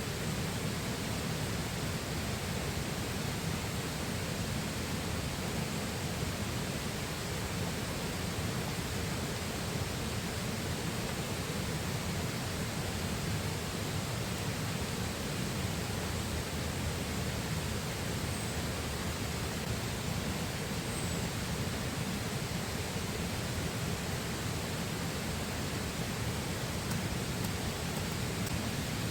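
Steady rushing of a flowing river, even and unbroken, with two faint short high chirps a little past the middle.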